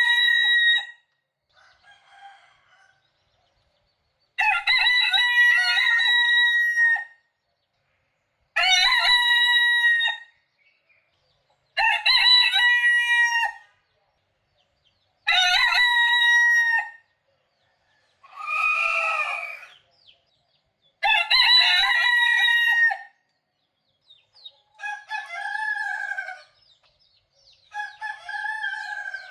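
Roosters crowing one after another, a crow of about two seconds every three to four seconds. Near the end come shorter, lower crows.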